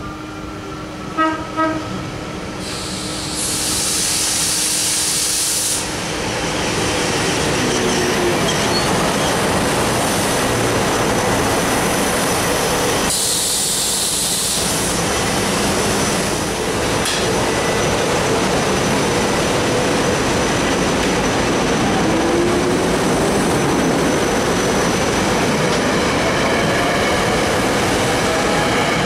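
A train passing close by at speed: two short horn blasts about a second in, then a steady loud rush of wheels and rail noise, with a rising whine near the end.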